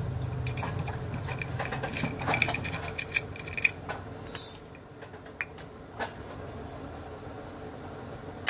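Steel padlock and its keys handled and set down on a concrete floor: quick metal clinks and clicks, busiest in the first half, then a few scattered clicks.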